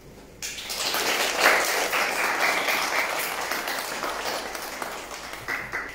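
Audience applauding. The clapping starts suddenly about half a second in, is loudest around a second and a half, then slowly dies down.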